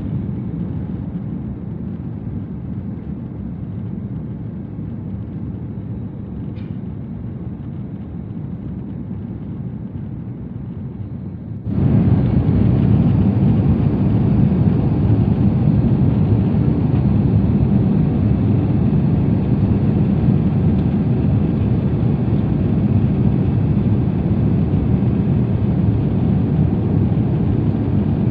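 Steady cabin noise of a jet airliner climbing after takeoff, engines and airflow heard from a window seat. It jumps abruptly louder about twelve seconds in and stays steady after.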